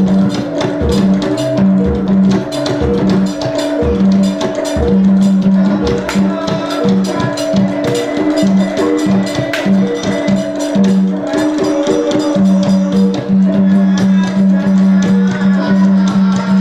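Javanese gamelan music accompanying jathilan dance: ringing bronze gong and metallophone notes held over a quick, steady pattern of drum strokes.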